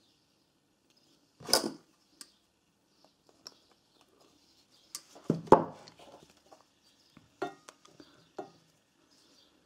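Hands working a plastic pull-cord handle and pliers while threading a recoil-starter cord: scattered clicks and knocks, the loudest about a second and a half in and a cluster of them around five and a half seconds in.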